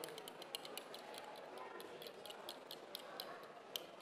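Spoon clicking against a glass bowl while yogurt thinned with plant-based cream is stirred: a quick, irregular run of faint clicks, about five a second.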